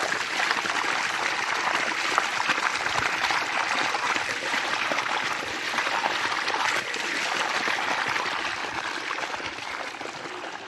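Water pouring steadily from an irrigation pipe outlet onto wet ground, a continuous splashing flow that grows quieter near the end.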